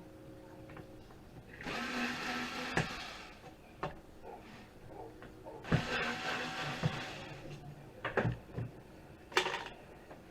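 Small electric power screwdriver run in two bursts of about a second and a half each, unscrewing a computer drive's casing, with sharp clicks and knocks of the metal parts being handled in between.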